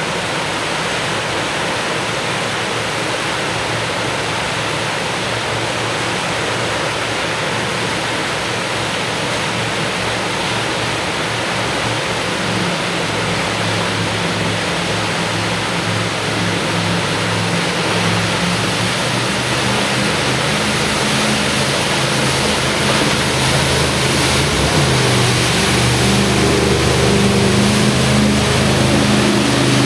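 Whitewater rapids rushing steadily, with a jet boat's twin Kodiak 350 V8 engines driving Hamilton 212 jets coming up under the water noise from about twelve seconds in. The engines grow louder as the boat climbs the rapid and comes close, rising in pitch near the end.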